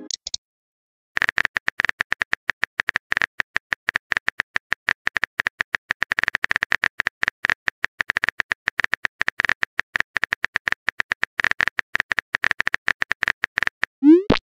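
Texting-app keyboard typing sound effect: a rapid, irregular run of clicks, about ten a second, then a short rising chirp near the end as the message is sent.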